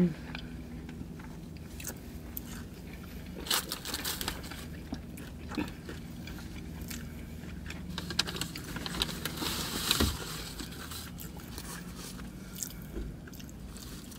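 Close-up chewing of a Hot Cheeto–coated mozzarella corn dog: crunching of the spicy chip crust with small mouth clicks and smacks, coming in scattered bursts.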